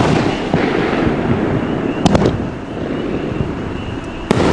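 World Class Fireworks 'Believe' 500-gram firework cake firing its shots, with sharp bangs as shells launch and burst. There is a quick cluster of two or three bangs about two seconds in and another near the end, with a steady noisy hiss between them.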